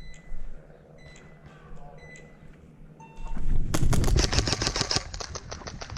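Short electronic beeps about once a second, then, about three seconds in, a loud run of rapid clicks over a rumble.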